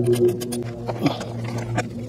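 Background music with a low sustained note, over a few scattered clicks of a hand ratchet loosening the ignition coil's hold-down bolt.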